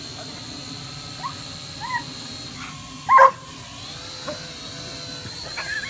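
A dog gives a few short yips and one loud bark about three seconds in, over the steady high whine of a drone.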